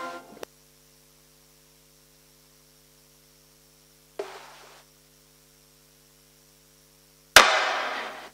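The last sung note of a choir's chant dies away, leaving a faint steady electrical hum from the church's sound system. A brief soft noise comes about four seconds in, and a sharp knock with a fading tail comes near the end.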